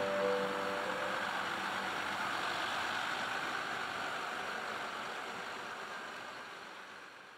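John Deere 6155R tractor's six-cylinder diesel running steadily as it drives past towing a field sprayer, heard as an even engine noise that fades away toward the end. The last held notes of background music die out about a second in.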